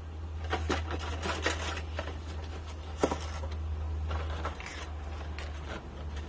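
Dry, uncooked lasagna noodles being snapped and broken by hand: a series of crisp cracks and crackles, the sharpest about three seconds in, over a steady low hum.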